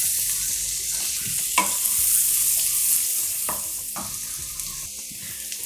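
Chopped onion sizzling in hot butter and oil in a kadai, stirred with a wooden spatula that knocks against the pan a few times. The sizzle slowly fades as the onion takes up the heat.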